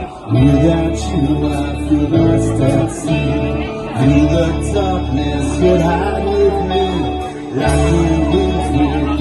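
A band playing live: guitars and a steady bass line, with a singer.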